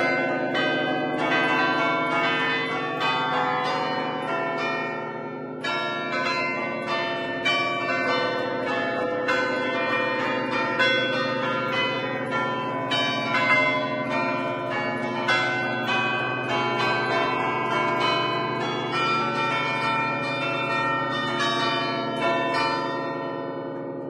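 A concert of ten church bells tuned in A, cast by Barigozzi in 1950, playing an allegrezza: rapid strikes from the lever keyboard in a lively traditional tune, the bells' tones ringing over one another. Near the end the striking stops and the bells ring on, fading.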